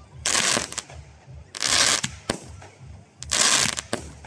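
Fireworks going off: three loud half-second bursts of noise about a second and a half apart, with a few sharp single bangs between them.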